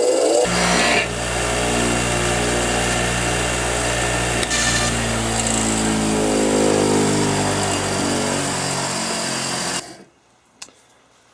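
Power-driven wire brush wheel running with a steel socket held against it to clean off rust and grime: a steady motor hum under the scratchy scrubbing of the wire bristles. It cuts off suddenly near the end.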